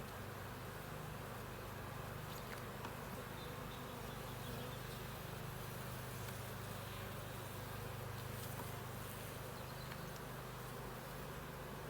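A colony of honeybees buzzing around an opened hive, a steady low hum.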